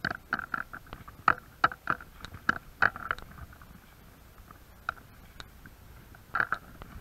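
Footsteps crunching over broken tiles, glass and rubble: a quick run of sharp crunches about three a second, then a few scattered ones.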